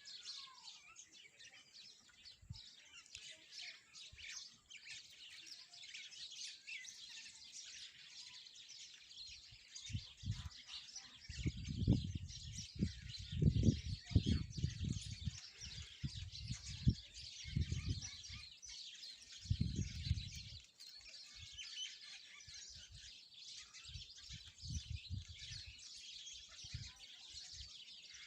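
A flock of small birds chirping and twittering densely and without pause. From about ten seconds in to about twenty, low gusts of wind buffet the microphone in loud bursts over the chirping.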